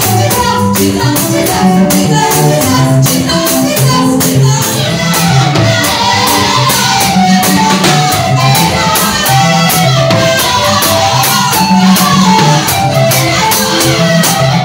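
Upbeat music with a steady, fast percussion beat and a moving melody.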